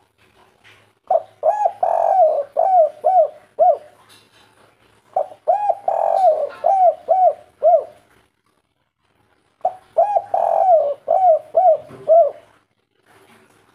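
Spotted dove cooing in three phrases a couple of seconds apart. Each phrase is a longer wavering coo among a run of short hooting notes, the three-note-ending 'kuk 3' call.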